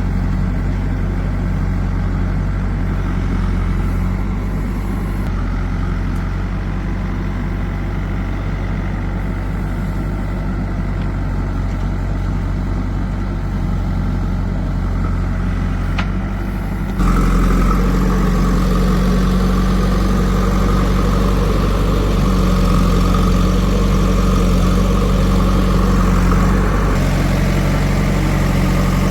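Heavy diesel machinery engine running steadily, turning abruptly louder about seventeen seconds in.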